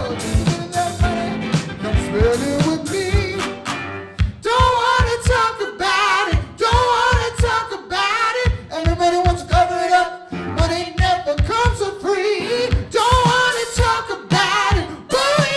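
Live band playing a song with sung vocals over electric guitar, electric bass and keyboard, with a steady beat of low hits; the music dips briefly about four seconds in.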